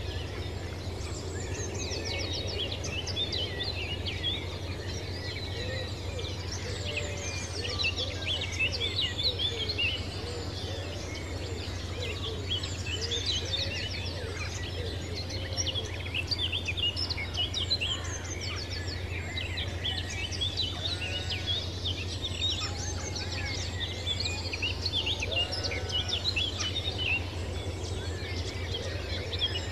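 Many birds chirping and singing at once in a steady rural chorus, with occasional lower calls among the chirps and a steady low hum underneath.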